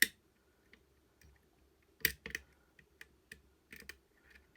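Metal clicks and ticks of a lever pick working the levers inside a five-lever mortice sashlock: a sharp click at the start, two more about two seconds in, and lighter ticks between.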